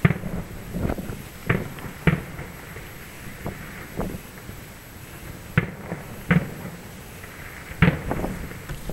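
Fireworks shells bursting across the water: a string of about nine sharp bangs at uneven intervals, loudest near the start, about two seconds in, and near the end.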